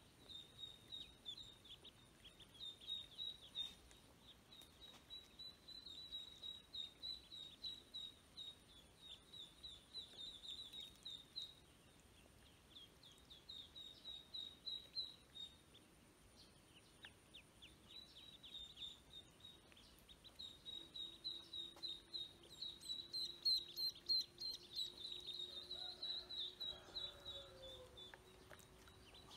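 Ducklings peeping: rapid runs of high, short chirps in bouts with brief pauses, busiest and loudest near the end.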